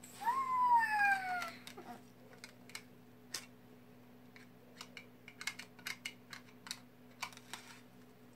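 A toddler's short high-pitched squeal, falling in pitch, near the start, then scattered light clicks and taps from a plastic toy knife and velcro-joined play food being cut apart.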